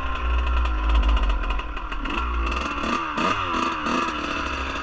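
Dirt bike engine running at low speed under the rider, with a few quick throttle blips that make its pitch rise and fall between about two and four seconds in.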